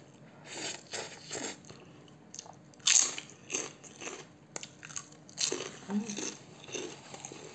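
Close-up eating sounds: noodles slurped into the mouth, then a series of crunching bites and chewing, the loudest crunch about three seconds in.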